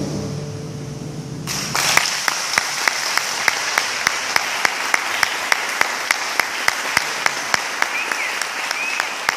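The last acoustic guitar chord rings out and dies away, then just under two seconds in an audience breaks into applause. One set of loud, sharp claps stands out at a steady pace of about three or four a second.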